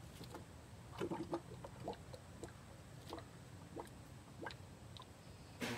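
Faint intermittent gurgles and small ticks from a quart bottle of automatic transmission fluid draining by gravity through a fill tube into the transmission, the bottle nearly empty. A louder noise starts just before the end.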